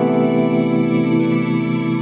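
Background music of long, held chords.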